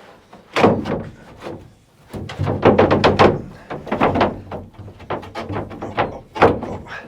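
A run of knocks and thunks as a fitted part is worked and pushed into its place in the camper's wooden floor: a few single knocks in the first second and a half, a quick cluster of knocks in the middle, and another knock near the end.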